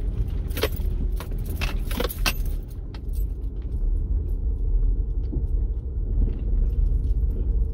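Car cabin noise while driving slowly over a rough, potholed dirt road: a steady low rumble of engine and tyres, with sharp clicks and rattles as the car goes over bumps, most of them in the first couple of seconds and a few lighter ticks later.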